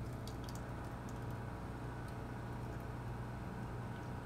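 M-Vac wet-vacuum DNA collection system's vacuum running with a steady hum, drawing the poured sample liquid down through the concentration filter, with a few faint ticks.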